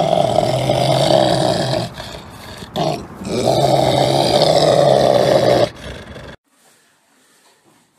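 Rottweiler growling as it gnaws a log: two long, low, steady growls with a short pause between them, then the sound stops abruptly.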